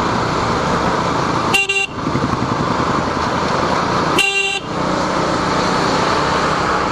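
Steady wind and engine noise from a moving motorcycle, with a vehicle horn beeping twice, each a short single-pitched honk, about two and a half seconds apart.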